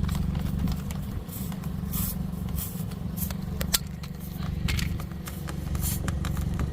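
Tyre plug tool being worked into a puncture in a car tyre: scattered short scrapes and clicks of metal and rubber, with one sharp click past the middle, over a steady low hum.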